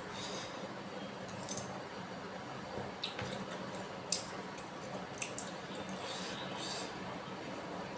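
Close-miked wet chewing and mouth sounds of someone eating spicy bakso meatball soup with seblak, broken by several short, sharp clicks.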